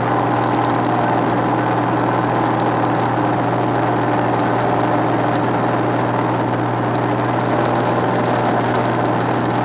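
Single-engine light aircraft's engine and spinning two-blade propeller, running steadily at cruise power with a steady low drone.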